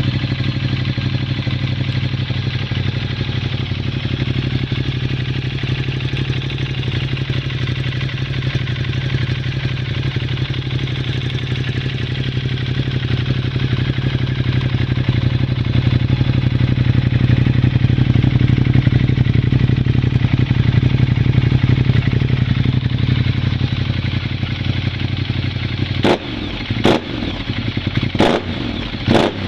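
Ducati Multistrada 1200's L-twin engine idling steadily through a full Termignoni exhaust system. Near the end the throttle is blipped four times in quick succession.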